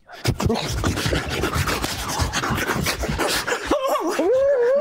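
Loud rustling and scraping of clothing and bodies against a clip-on microphone as two men hug and press their faces together. About three-quarters of the way in, a drawn-out wavering vocal moan begins.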